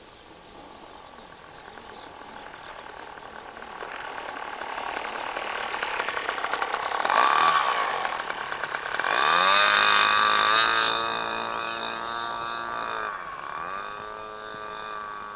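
OS 91 FX two-stroke glow engine of an RC model aeroplane rolling on the runway. It grows louder as the plane comes close and passes. About nine seconds in it is throttled up to a high steady whine, then eased back, with a short rise in revs again near the end.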